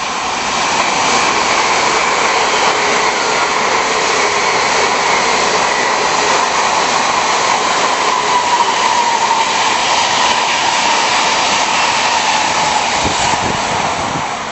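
Tokaido Shinkansen high-speed train passing close by at speed. A loud, steady rushing noise builds up over the first second and holds. A faint whine falls in pitch midway as the train goes past, and the noise starts to fade at the very end.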